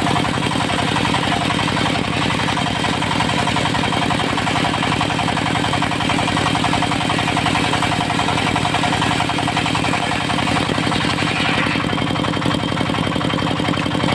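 Engine of a portable circular sawmill running steadily at an even speed.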